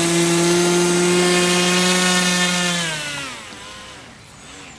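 HobbyKing Swamp Dawg RC airboat's 2300kv brushless outrunner motor and 5.5-inch propeller running at high throttle with a loud, steady buzzing whine. About three seconds in, the pitch drops sharply and the sound fades. It then runs on faintly with a wavering pitch.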